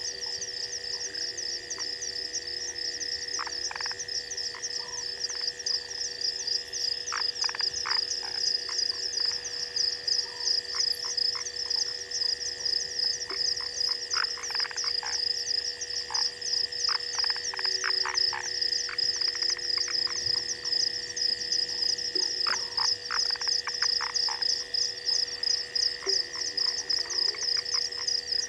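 Night chorus of frogs and insects at a waterhole: a fast pulsing high-pitched trill that runs on steadily over a constant high tone, with scattered short clicking calls, growing a little louder about six seconds in.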